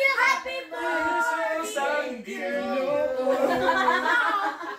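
A small group of voices, adults and children together, singing a birthday song unaccompanied; the singing stops near the end.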